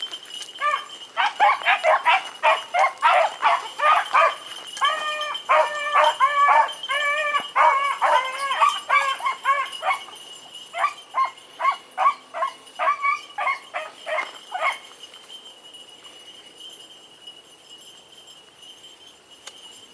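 Pack of beagles baying on a rabbit's trail: rapid, repeated barks, several a second, that stop about fifteen seconds in.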